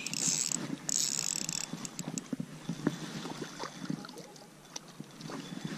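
Baitcasting reel being cranked to bring in line, with two short high buzzes in the first second and a half, then scattered soft clicks and handling rustle.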